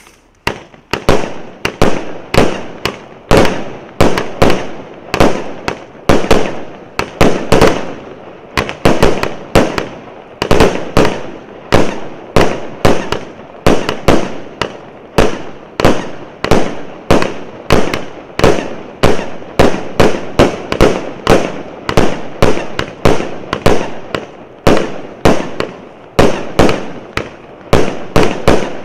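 A 128-shot firework cake with 0.8-inch tubes firing in a rapid string of sharp bangs, several a second, the string starting just after the opening and keeping on without a break.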